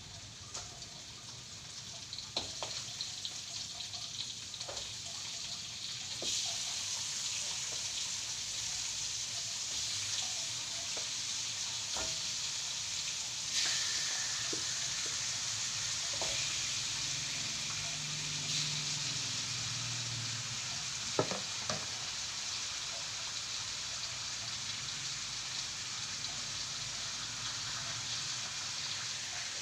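Food sizzling in hot oil in a pan: a steady frying hiss that gets louder about six seconds in and again near the middle, with scattered light clicks and knocks of a utensil against the pan.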